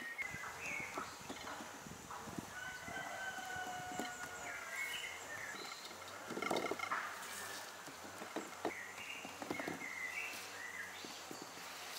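A rooster crowing, with small birds chirping around it, over soft knocks and rubbing of hands pressing pizza dough into a metal baking pan.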